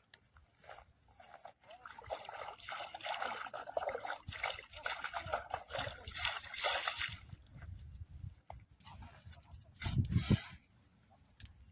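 Water trickling and sloshing in uneven spurts, followed by a short louder bump near the end.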